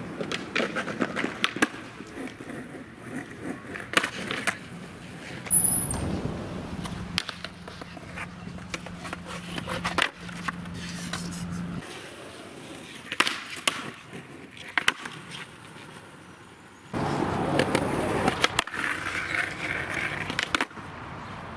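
Skateboard wheels rolling on concrete, broken by repeated sharp clacks of the board popping and landing. Near the end comes a louder scrape lasting about three seconds as the trucks grind along a concrete ledge.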